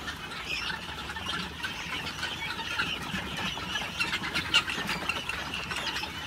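Thousands of young guinea fowl keets, about two weeks old, calling together in a continuous chatter of many overlapping high chirps.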